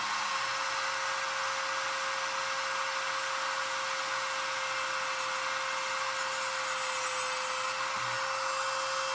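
Dremel rotary tool running at a steady high speed, a constant whine with a hiss of air and motor noise above it.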